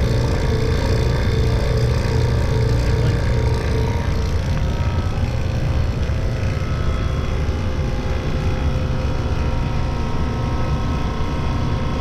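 Steady, loud drone of ship's machinery-room equipment, mostly a deep low hum, with a mid-pitched tone that fades out about four seconds in.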